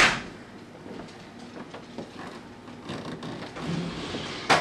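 A toddler rummaging inside an open refrigerator: light rustling and small knocks and clicks, with a sharp noise right at the start and a loud click near the end.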